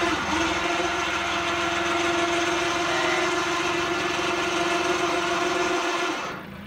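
Electric hoist motor of a homemade truck-mounted crane running steadily with a constant whine as it lifts a load of around 100 kilos. It stops for an instant just after the start, then runs on and cuts off sharply near the end.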